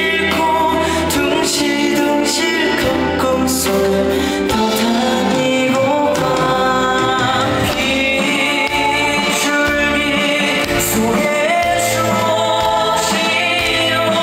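A young male singer singing live into a handheld microphone over instrumental accompaniment, with held, gliding vocal lines at an even loudness.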